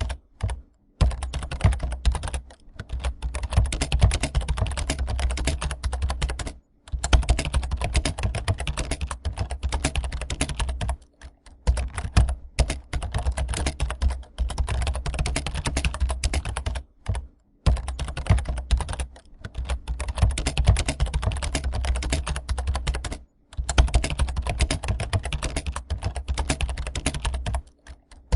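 Rapid computer keyboard typing, dense fast keystrokes that stop for brief pauses every few seconds.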